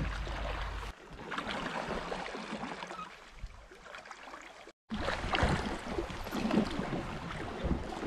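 River water lapping and splashing around a rowed drift boat, with many small sharp splashes, and a low rumble in the first second. The sound drops out for a moment just before five seconds in, then returns louder and more splashy.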